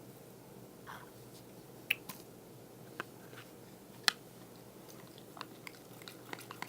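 Glue slime being worked by hand, still partly activated and coming together: scattered sticky clicks and wet pops, the sharpest about two and four seconds in.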